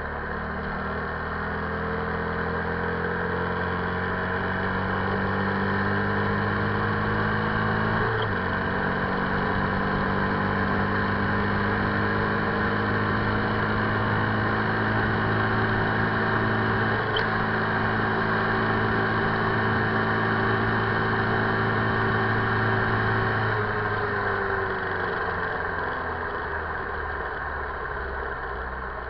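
2008 Buell XB9SX's V-twin engine pulling hard through the gears, its pitch climbing and then dropping sharply at two upshifts about eight and seventeen seconds in. The revs fall off as the throttle closes about twenty-four seconds in, over a steady rush of wind.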